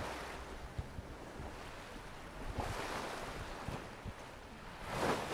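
Faint sea waves washing with wind, swelling into a louder wash near the end.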